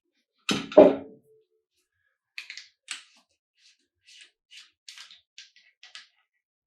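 Hand-tool work on an engine's oil filter housing: a loud metal clunk about half a second in, then a run of light, irregular clicks and ticks.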